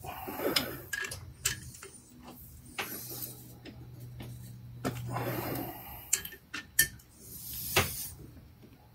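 Hand wrench working the bolts on a Ford AOD transmission pump body: scattered metallic clicks and knocks, with a steady low hum underneath.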